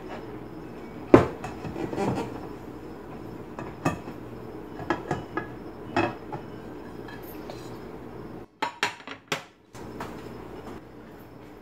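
Metal bundt cake pan and glass plate knocking and clinking against each other and the stovetop as a cake is turned over, a run of separate knocks with the loudest about a second in and a quick cluster near the end, over a steady low hum.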